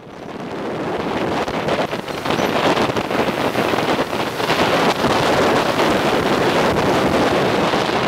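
Wind buffeting the microphone over the running noise of a moving road vehicle, a dense steady rush that fades in over the first second or so.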